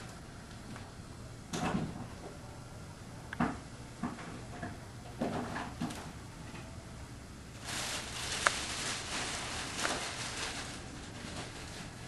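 A few dull knocks and clunks, then about three seconds of rustling with small clicks, over a faint steady hum. These sound like handling noises.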